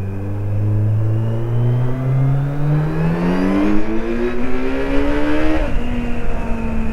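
Kawasaki Z900's inline-four engine accelerating, its pitch rising steadily for about five and a half seconds, then dropping suddenly and holding a steady lower note.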